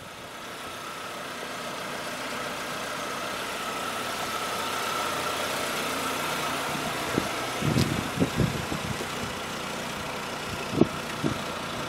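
A motor vehicle engine running steadily, with a few short low thumps about eight seconds in and again near the end.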